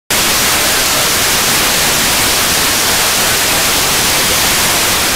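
Loud, steady hiss of FM radio static from a receiver tuned to the ISS's 145.800 MHz downlink in the 2 m ham band, with no signal yet breaking through. The hiss cuts in abruptly just after the start.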